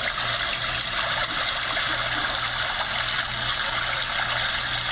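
Homedics SoundSpa sound machine playing its digitally recorded brook sound: a steady rush of running water.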